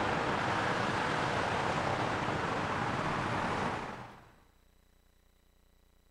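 Steady rushing outdoor street noise that fades out about four seconds in, leaving near silence.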